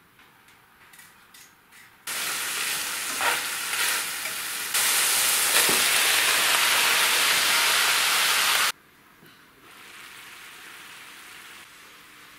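Diced potatoes going into a hot frying pan of meat on a gas stove and sizzling loudly in the oil. The sizzle starts suddenly about two seconds in, grows louder, then cuts off sharply and carries on as a quieter sizzle near the end.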